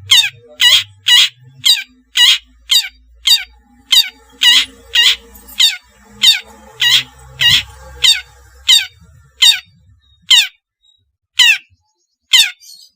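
Long-tailed shrike (cendet) giving a long series of harsh calls, each a sharp downward sweep, a little under two a second, spacing out near the end.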